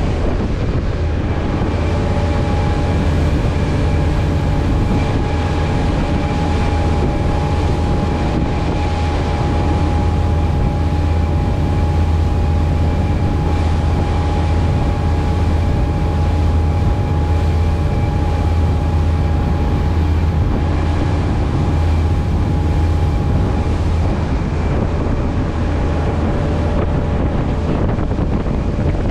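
Motorboat engine running steadily at constant speed, a low hum with a steady whine above it, with wind buffeting the microphone and water rushing along the hull.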